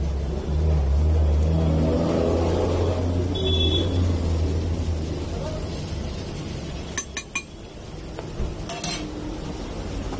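Metal spatula working vegetable filling on a dosa griddle: a few sharp metallic clinks, a cluster about seven seconds in and another about nine seconds in. Under them is a low rumble with background voices, loudest in the first half.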